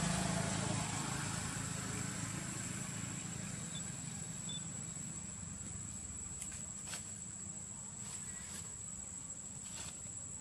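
Steady outdoor background noise: a low hum that fades during the first second or so, a constant thin high-pitched tone, and a few faint clicks in the second half.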